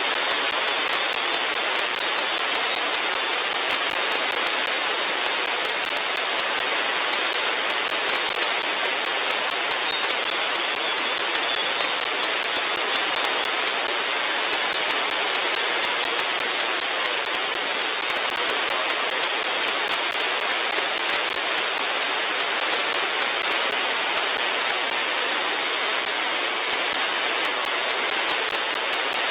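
Steady hiss of HF band noise (static) from an RTL-SDR V4 receiver demodulating an empty single-sideband channel, with no station transmitting. The hiss is confined to a narrow voice-width band.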